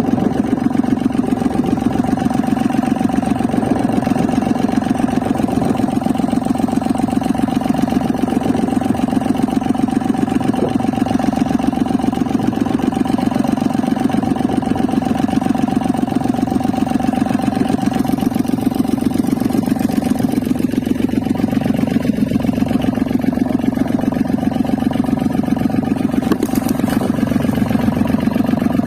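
An engine running steadily at one constant speed, with an even, fast pulse and no change in pitch.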